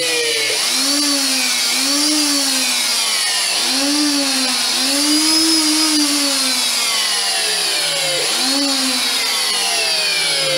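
A hand router mounted upside down in a table runs at full speed, switched on just before, while a round-over (fillet) bit rounds the edges of 8 mm plywood. Its whine rises and sags in pitch over and over, about six times, as the wood is fed past the bit.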